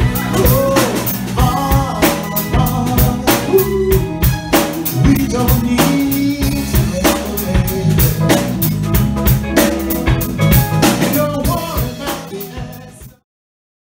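Live band playing a Motown-style groove on electric guitar, bass guitar, drum kit and keyboard, with a steady drum beat. The music fades out near the end and drops to silence.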